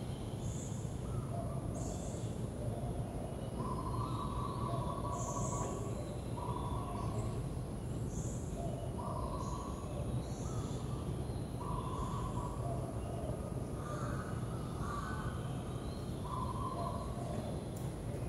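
Birds calling: one bird repeats a call about every one to two seconds, with higher short chirps from other birds, over a steady low background hum.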